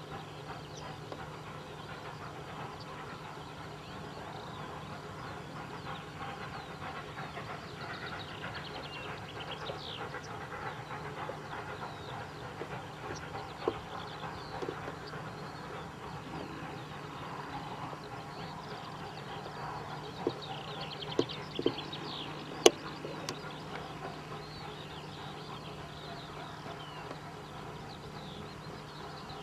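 Steam locomotives 30.33 and 93.1420 working a train in the distance, a steady low rumble, with birds chirping throughout. A few sharp clicks come in the second half, the loudest about three-quarters of the way in.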